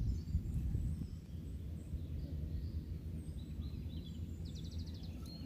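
Low wind noise buffeting the microphone, with a few faint bird chirps above it, a quick run of them about four and a half seconds in.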